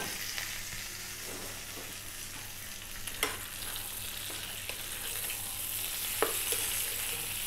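Beef liver and smoked back bacon sizzling in oil in a frying pan, with a steady hiss. A wooden spatula stirs and turns the pieces, knocking lightly against the pan about three seconds in and again near six seconds.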